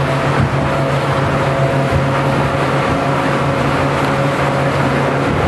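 Outboard engine of a small open speedboat running steadily at speed, a constant drone over the hiss of rushing water and wind.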